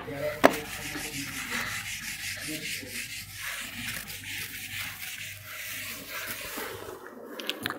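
Whiteboard eraser rubbing back and forth across a whiteboard, wiping off marker writing: a steady scrubbing hiss that stops about seven seconds in. A sharp knock about half a second in as the eraser meets the board.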